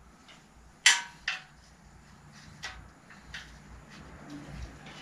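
Metal clinks of a hand tool working at a bicycle's rear axle: two sharp, ringing clinks about a second in, then a few fainter ticks.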